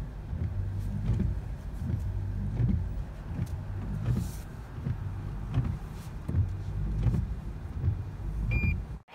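Car pulling slowly into a garage, heard from inside the cabin: a steady low hum and rumble from the car. A short electronic beep sounds near the end.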